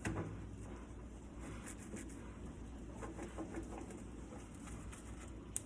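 Faint rubbing and scratching of a damp, soapy rag wiping the inside walls of a microwave, with a small click near the end.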